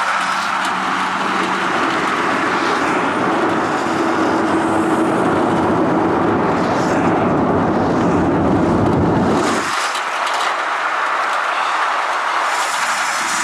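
Wind rushing over the microphone with tyre and road noise from a moving pickup truck, heard from its open bed. The steady, loud noise loses its deepest rumble about two-thirds of the way through.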